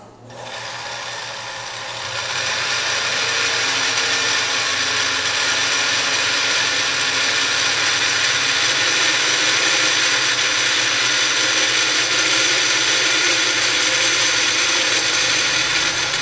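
Electric domestic sewing machine running with the foot pedal pressed all the way down, winding the bobbin at full speed while the needle is disengaged by the clutch knob on the handwheel. It is a steady mechanical whir that picks up speed about two seconds in and then holds even.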